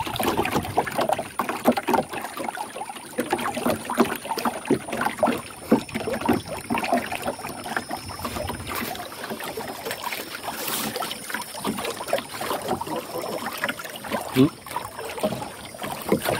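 Water lapping and slapping against the hull of a small wooden canoe, a dense run of irregular little splashes and knocks.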